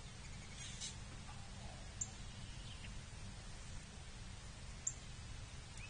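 Faint wild bird calls and chirps, scattered and distant, over a low steady rumble, with two sharp high ticks about two and five seconds in.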